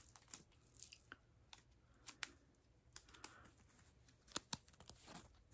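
Near silence broken by faint, scattered light clicks and taps of a small wrapped item and its packaging being handled and opened, with the strongest pair of clicks about four and a half seconds in.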